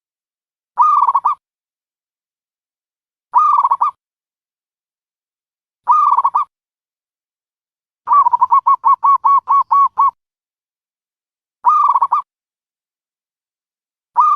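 A dove calling: short trilled coos repeated about every two and a half seconds, with one longer run of about ten quick notes in the middle.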